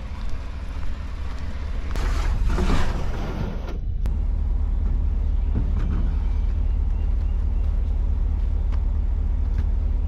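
An engine running with a steady low hum. It grows louder after a loud rushing noise that stops sharply about four seconds in, then holds even.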